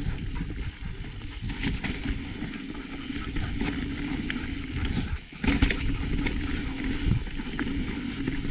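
Trek Remedy mountain bike riding a rough dirt-and-rock trail: wind rumbles on the microphone while the tyres crunch and the frame and chain rattle with many small knocks. The noise briefly drops away a little past five seconds in.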